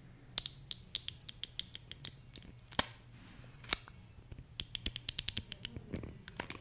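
Crisp clicks and crackles of a plastic-like paper wrapper being picked at and peeled off a cosmetic pencil, close to the microphone, with a quick run of clicks about five seconds in.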